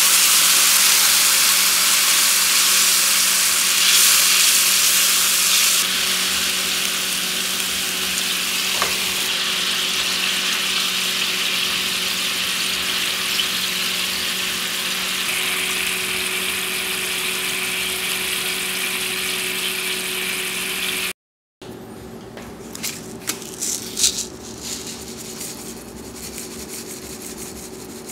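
Honey-and-soy sauce sizzling and bubbling steadily in a frying pan as it reduces around pieces of salmon, over a faint steady hum. About 21 s in the sizzling cuts off, and a few soft clicks and rubbing sounds follow at a much lower level.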